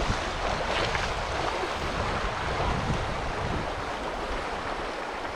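Steady rushing of river water, with low rumbling that fades slightly toward the end.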